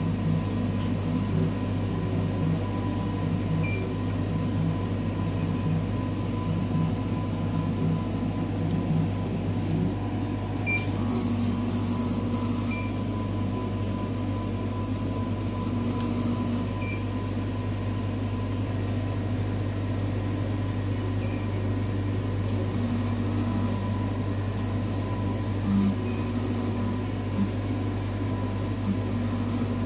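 Steady machine hum from a Cornley K-Lite 3 electrolyte analyzer running a QC sample measurement, with a few faint clicks spaced several seconds apart.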